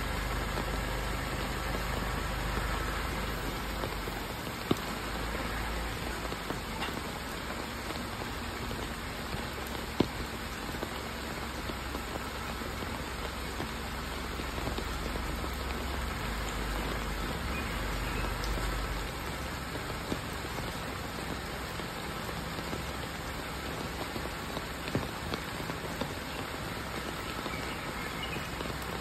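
Steady rain falling on wet ground, with a car's engine running low underneath. A few sharp taps of dripping water break in now and then.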